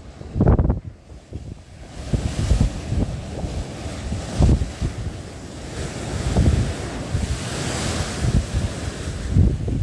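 Sea waves breaking and splashing against a sloped concrete sea wall, the rushing hiss of surf and spray swelling to its loudest about eight seconds in. Gusty wind buffets the microphone throughout.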